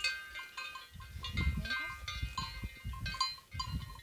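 Several metal livestock bells clanking irregularly at different pitches, each stroke ringing on, over a low rumble.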